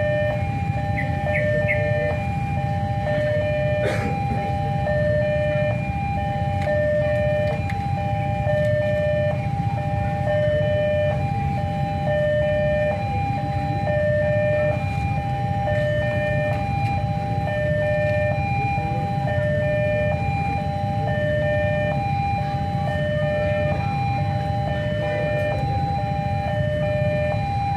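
Level-crossing warning bell sounding a steady alternating two-tone chime, high and low notes taking turns at an even pace: the signal that the crossing is closed for an approaching train. Under it runs a low steady rumble, and there is one sharp knock about four seconds in.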